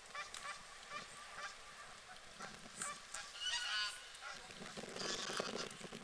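Geese honking: one call about halfway through and a longer, rougher call near the end.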